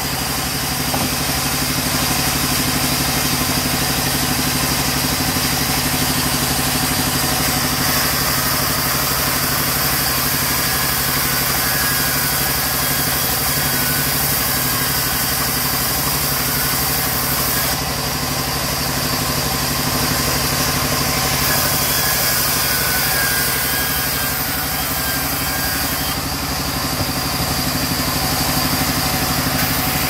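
Sawmill band saw running steadily while it rips a mahogany plank lengthwise: a continuous machine drone with the blade's cutting noise on top, shifting slightly a couple of times as the wood is fed.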